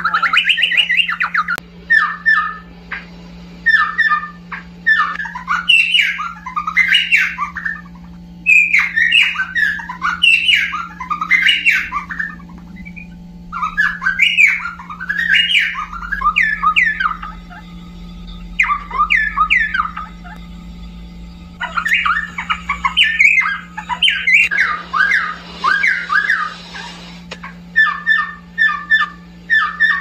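Cucak pantai, a Papuan honeyeater, singing: loud bursts of quick, sweeping whistled and chattering notes, one to three seconds long, repeated with short pauses. A steady low hum runs underneath.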